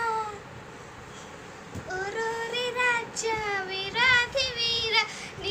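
A young girl singing in a high voice, her notes held and wavering in pitch. One note ends just after the start; after a pause of over a second she sings again from about two seconds in.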